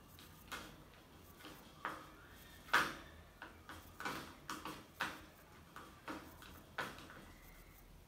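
Ringneck parrots in a wire cage making faint, scattered clicks and taps, about ten in all at uneven intervals, the loudest a little before the middle.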